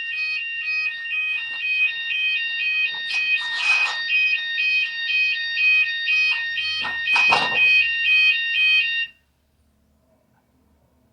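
Fire alarm sounding, a steady high tone with a second tone warbling between two pitches about twice a second, until it cuts off suddenly about nine seconds in. Two brief rustling bursts come through it, about three and a half and seven seconds in.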